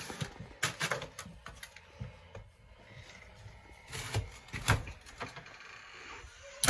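Snow shovel scraping snow and ice off porch steps: several short scrapes and knocks of the blade, a few near the start and more around the middle.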